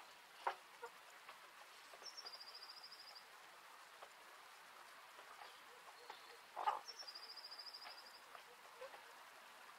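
Faint hen-run ambience: a small songbird sings a short, high, rapid trill twice, about two seconds in and again about seven seconds in. A short, sharp hen call comes just before the second trill, the loudest sound here.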